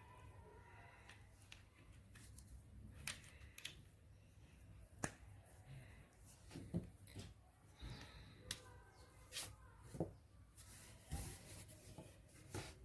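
Faint, scattered clicks and taps, a dozen or so at uneven intervals, from small objects being handled.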